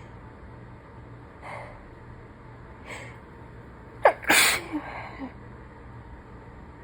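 A woman sneezing once, loudly, a little over four seconds in, after two short breaths in and a quick catch of the voice just before it; she is sick.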